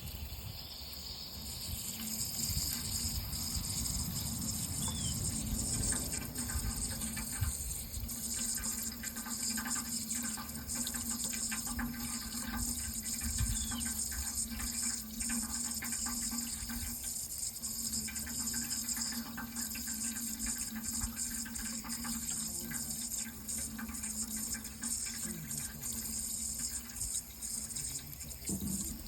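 Steady running water, an even rushing flow with no break.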